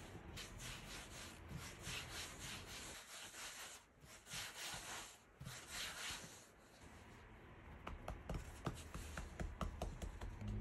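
Hands rolling a log of bread dough back and forth on a floured silicone baking mat: repeated soft rubbing strokes for about the first six seconds, then a few faint light clicks.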